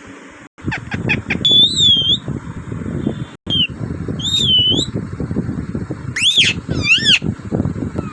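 A parrot giving several whistled calls: two held, warbling whistles in the first half, then a pair of quick rising-and-falling calls about three-quarters through, over constant low rustling and knocking. The sound drops out briefly twice.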